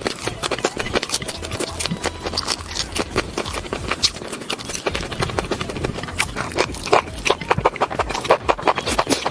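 Close-miked mukbang eating sounds of mango being eaten: a fast, dense run of wet chewing and lip-smacking clicks.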